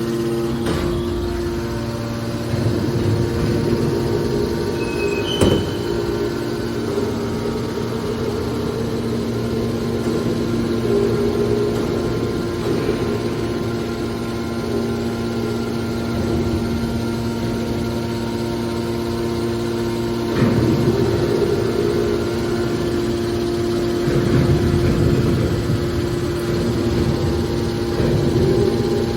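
Hydraulic metal baler running: a steady humming drone from its pump motor. There is a sharp knock about five seconds in, and louder rough swells about two-thirds of the way through and again near the end as the machine works under load.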